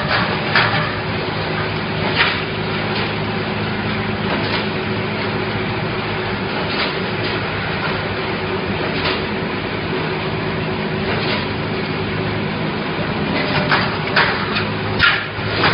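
Automatic double-pull wire mesh welding machine running, with a steady electrical hum and scattered sharp clicks. Near the end comes a quick run of sharp cracks as the row of welding heads fires on the cross wire, throwing sparks.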